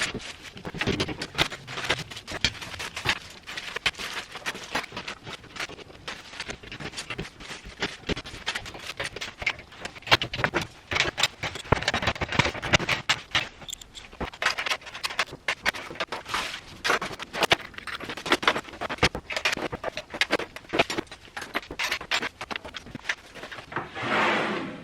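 Irregular clatter of tools and household items being handled, knocked together and scraped, with a louder rush near the end.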